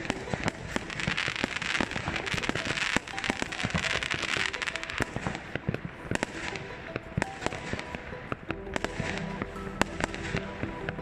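Many fireworks going off at once: a dense, irregular run of bangs and crackling from aerial shells, with a hissing crackle strongest in the first half. Music with held notes comes in under them in the second half.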